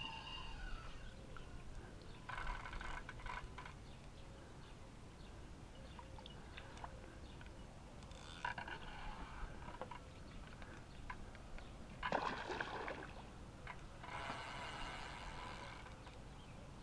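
Water sloshing and splashing in four short bursts of a second or two each, over a low steady rumble.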